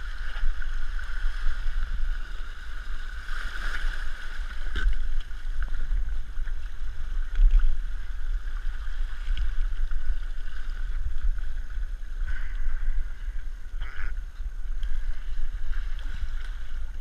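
Muffled, uneven rumble and hiss of wind and water at a rocky shoreline, heard through a camera worn under a neoprene hood, with a few swells of splashing.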